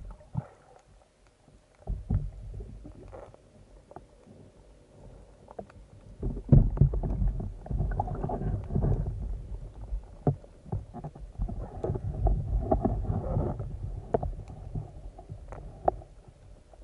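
Muffled water noise heard through an underwater camera: quiet for the first few seconds with scattered clicks and knocks, then from about six seconds in louder low sloshing and rumbling of water at the surface, with more knocks and clicks.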